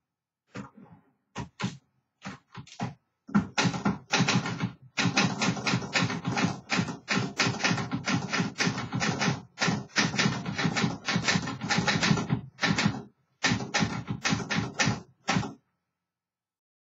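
Olivetti Underwood Studio 44 manual typewriter being typed on. A few scattered keystrokes come first, then a fast, steady run of keystrokes with short pauses, which stops about a second before the end.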